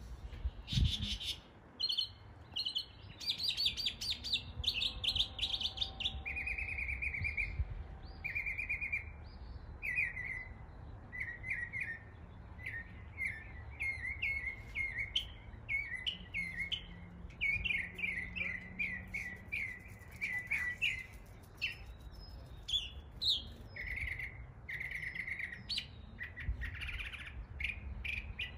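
Northern mockingbird singing a long, varied song of imitated bird calls. It repeats each phrase several times before switching to a new one, with a quick run of short notes in the middle.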